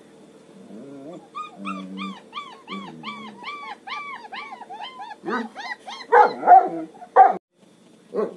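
Long-coat German Shepherd puppy whining in a quick run of high, arching yelps, about three a second, then letting out three louder yaps, the loudest sounds here.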